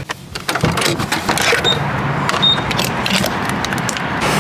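Fuel pump being worked: a run of clicks and knocks from handling the door, fuel flap and nozzle, with two short high electronic beeps from the pump, about a second and a half in and again just under a second later.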